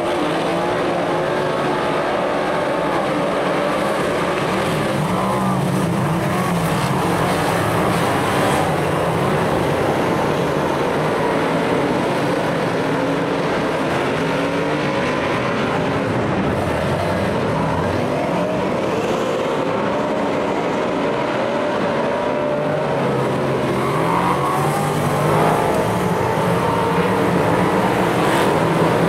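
Several superstock race cars' V8 engines running hard together in a race, their overlapping engine notes rising and falling as the drivers throttle up and ease off.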